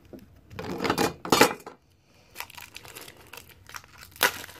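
Toy packaging being opened by hand: a small cardboard box and its crinkly plastic wrapper rustling and tearing, with louder crinkles about a second in and one sharp crinkle near the end.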